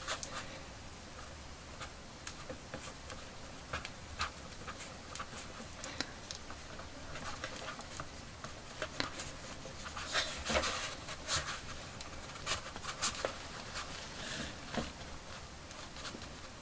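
Scratchy rustling and small clicks of a small screwdriver tip pushing a doll's rooted hair into a space bun, with a denser stretch of rustling about ten seconds in.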